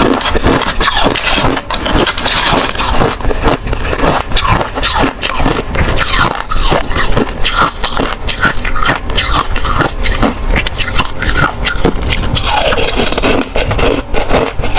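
Ice cubes being bitten and crunched between the teeth close to the microphone: a dense, continuous run of cracking and crunching.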